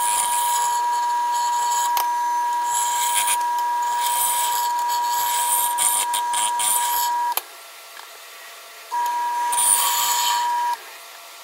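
Wood lathe running with a steady motor whine while a freshly sharpened carbide turning tool cuts inside the spinning bowl, the wood shavings hissing in repeated passes: light cleanup cuts to remove tear-out. The whine and cutting stop abruptly about seven seconds in, return for about two seconds, and drop out again just before the end.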